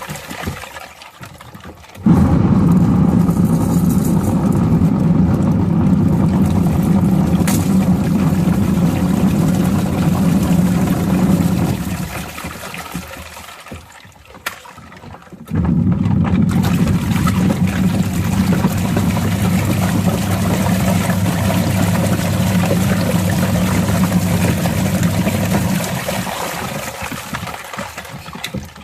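Small washing machine's electric motor starting abruptly and spinning a drum of water with a steady hum, winding down, then starting again about halfway through and winding down near the end.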